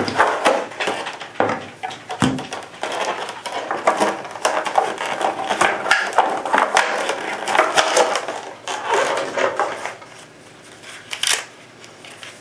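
Box packaging rustling and crinkling, with many small clicks and knocks, as an air pistol is unpacked and lifted out. It goes quieter about ten seconds in, apart from one more click.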